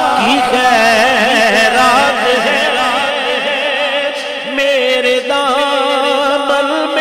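Male voice singing a naat, an Urdu devotional song, drawing out long wavering melismatic notes without clear words.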